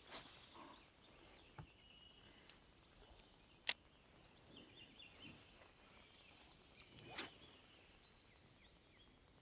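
Quiet outdoor ambience with faint, high bird chirps from about halfway through. A single sharp click a little over three and a half seconds in is the loudest sound, and a softer knock follows about seven seconds in.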